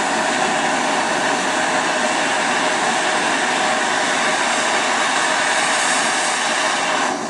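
Handheld butane cartridge torch burning with a steady rushing hiss, its blue flame heating a thin steel chainsaw starter spring red-hot before it is bent into a hook.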